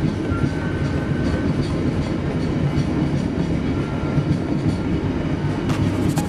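Passenger train running on the line, heard from the rear end of its last coach: a steady rumble of wheels on rail with faint regular clicks, and a quick run of sharper clicks near the end.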